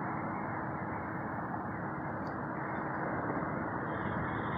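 Steady roadside traffic noise with no single engine standing out. A higher hiss starts building near the end as a vehicle approaches.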